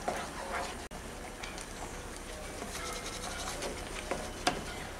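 Wooden spatula stirring and scraping thick mango semolina halwa in a pan, faint, with a few light knocks of the spatula.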